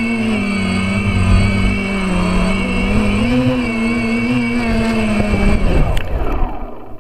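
DJI F450 quadcopter's brushless motors and propellers heard from its onboard camera: a steady hum that wavers in pitch with the throttle. About six seconds in there is a brief knock and the hum winds down as the quadcopter sets down in the grass.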